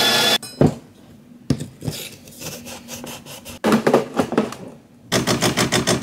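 A steady machine noise cuts off just after the start, followed by scattered knocks and clacks of coffee gear and crockery being handled on the counter. About five seconds in, the De'Longhi La Specialista espresso machine starts brewing, its pump pulsing rhythmically.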